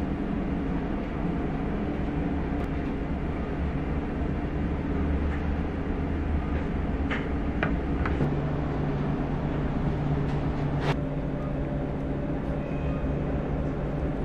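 Steady low rumble and hum of room noise, with a second low hum coming in about eight seconds in. A few light clicks of a ceramic tea bowl handled on a lacquered tray: three close together around seven to eight seconds in, and a sharper one a few seconds later.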